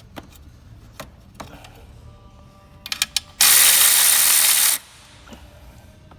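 Tool work on an engine's fastening nuts: a handful of quick ratchet-like clicks, then a loud hiss of air lasting about a second and a half that cuts off suddenly.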